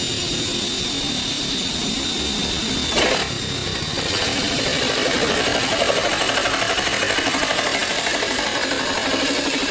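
Electric drill driving a hole saw: a steady high motor whine, a sharp knock about three seconds in, then a louder, pulsing sound of the saw cutting into wood.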